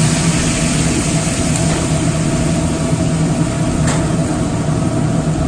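Steady drone of a commercial kitchen's gas range burners and ventilation, with white wine simmering in a hot sauté pan; one light click about four seconds in.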